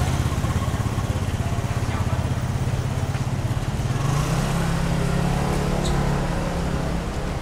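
A motor vehicle engine running close by with a steady low hum, its pitch stepping up slightly about four seconds in, over street noise.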